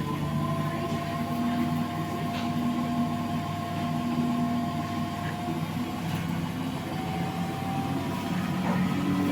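Electrolux CompassPRO WH6-27 commercial washer running a spin-only cycle: a steady motor hum with several whining tones that shift slightly in pitch as the drum turns.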